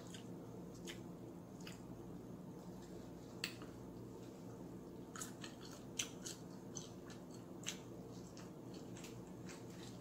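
Faint eating sounds of someone eating with bare hands: scattered short wet clicks and smacks from chewing and fingers working through fried chicken and macaroni and cheese, over a steady low hum.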